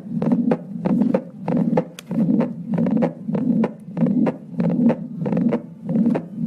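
Recorded stethoscope heart sounds of mitral regurgitation, in which the first heart sound (S1) is very soft. The beats repeat evenly, about two a second, and stop suddenly at the end.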